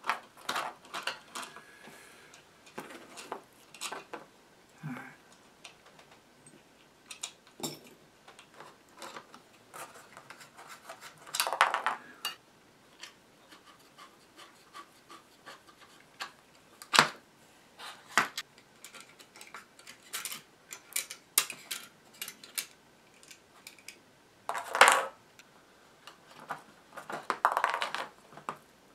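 Hand tools and small metal hardware clinking and scraping on a workbench as screws are worked loose with a screwdriver and tube sockets are taken off a radio's socket panel. Scattered sharp clicks and taps, with a few longer scraping rustles about twelve seconds in and near the end.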